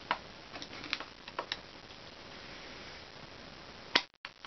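Light, scattered clicks and taps of a pipe wrench and a freshly removed spark plug being handled at a table, over a faint steady hiss. A sharper click comes about four seconds in, and the sound cuts out briefly just after it.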